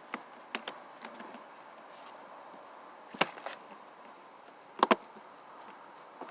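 Side access cover of a Predator 2500 inverter generator being fitted back on: scattered clicks and knocks, with a sharp knock about three seconds in and a quick double snap near five seconds as the tabs catch.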